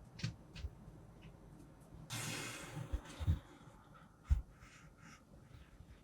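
Kinetic sand being cut and handled: a soft crumbling hiss for about a second, about two seconds in, among soft low thumps and light clicks.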